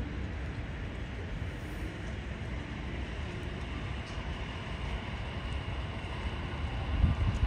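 Steady city street ambience, mostly a low rumble of traffic noise. Wind starts buffeting the microphone with loud low gusts in the last second or so.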